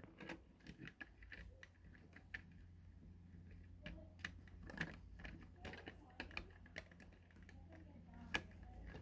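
Plastic Lego pieces being handled and pressed together: scattered small irregular clicks and clatter, the sharpest click near the end, over a faint steady low hum.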